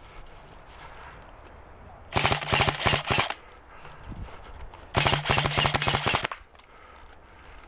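Airsoft electric rifle firing two bursts of rapid full-auto fire, each about a second long, with the gearbox motor whine under the clatter of shots.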